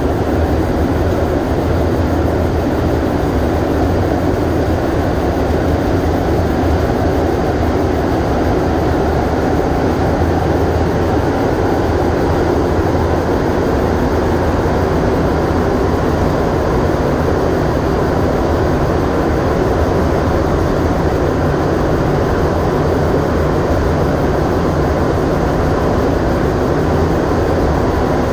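Montreal Metro Blue Line train of rubber-tyred MR-73 cars running at steady speed through a tunnel, heard from inside the car: a constant, even rumble of tyres and traction motors.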